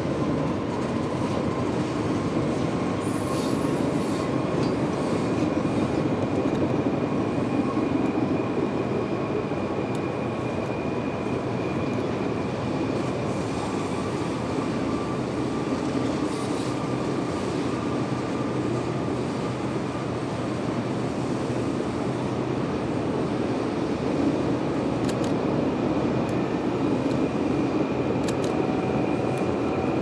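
Rhaetian Railway's almost 2 km long electric passenger train rolling over a curved viaduct: a steady rumble of wheels on rail, with faint high wheel squeal held for long stretches.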